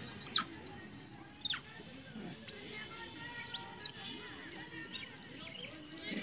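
A run of short, very high-pitched squeaky animal calls, each rising and falling, about five in the first four seconds, with a few light clicks between.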